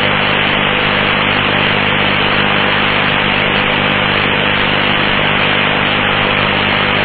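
Air traffic control radio channel open with no one speaking: a steady hiss of static over a low electrical hum.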